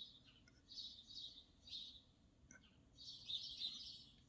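Faint birdsong: short high chirps about a second in and two seconds in, then a longer twittering phrase after three seconds.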